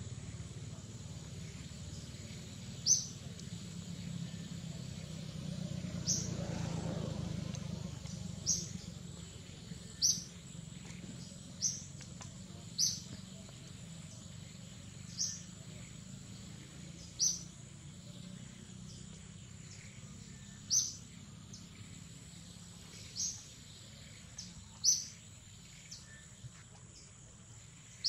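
A bird giving a short, high chirp again and again, one to three seconds apart, over a steady low rumble of background noise.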